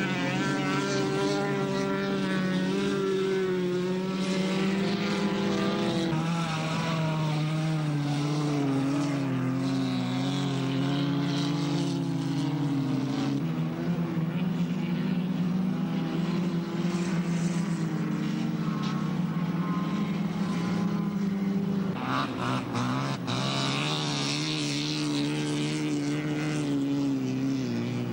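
Race car engines running hard on an ice track, several engine notes holding and shifting in pitch as the cars lap. About 22 seconds in, a nearer car goes by with a rush of noise.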